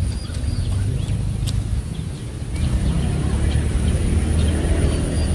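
Outdoor ambience: a steady low rumble, with short high bird chirps about a second in and again near the end.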